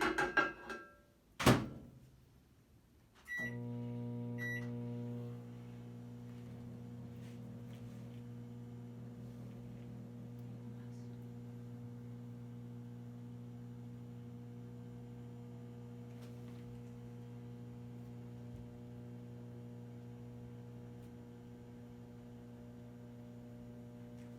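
Microwave oven door shut with a thunk, two short keypad beeps, then the microwave running with a steady electrical hum as it melts butter.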